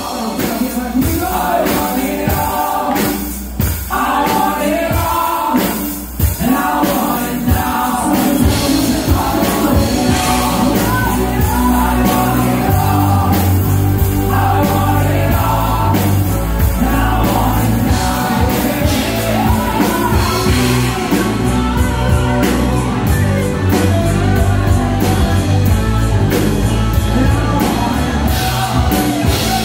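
Live band playing a song with a singer, amplified through a PA system; the bass and low end grow fuller and heavier about eight seconds in.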